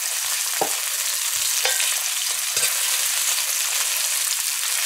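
Sliced onions sizzling in hot oil in an aluminium karahi, with a steady hiss. A metal spatula stirs them, scraping and tapping against the pan every second or so.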